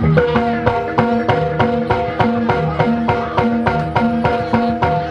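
Live kuda kepang accompaniment music: a quick, even beat of struck pitched percussion with drum strokes, over a high note held throughout.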